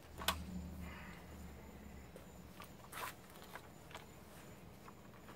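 Plastic clicks and knocks from handling and fitting together the parts of a Ryobi cordless string trimmer, a sharp one just after the start and a few more about three to four seconds in. A low hum runs under the first couple of seconds and then fades.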